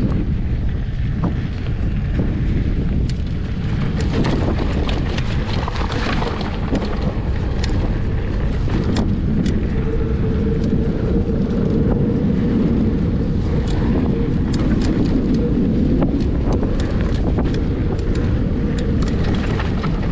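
Mountain bike riding fast down a dirt trail: tyres rolling over dirt and rock under heavy wind buffeting the microphone, with many sharp clicks and rattles from the bike.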